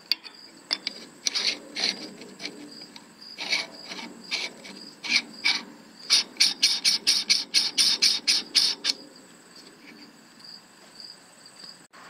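Metal threads of a 40 mm extension tube scraping as it is screwed by hand into the back of a Baader 10x60 Vario Finder. The scrapes come in short runs, with a quicker run of about a dozen strokes in the second half, and stop about three seconds before the end.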